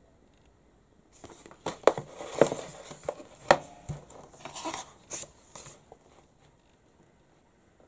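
Pages of a Character Design Quarterly art magazine being handled and turned: a run of crisp paper rustles and sharp flicks starting about a second in, loudest in the first few seconds.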